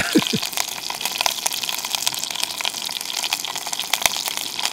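Bear meat frying in bear fat in a small pot on a backpacking stove: a steady sizzle with many small crackles of spattering fat.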